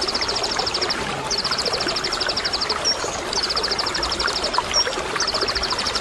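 Konin (purple-throated sunbird) repeating a fast, high rattling trill, the 'tembakan' song used to provoke other konin, four times with short chirps between, over a steady sound of running water.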